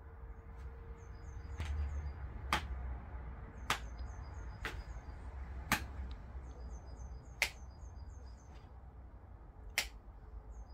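Six sharp clicks at uneven intervals, with runs of rapid, high bird chirps coming and going in the background over a low hum.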